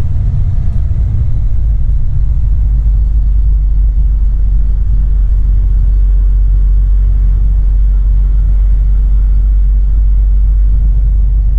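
Semi-truck's diesel engine and drivetrain running in a steady low rumble, heard from inside the cab while driving at low speed.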